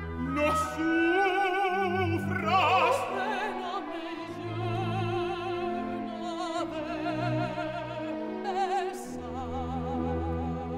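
Operatic soprano singing a zarzuela duet line with wide vibrato, over a symphony orchestra's sustained accompaniment.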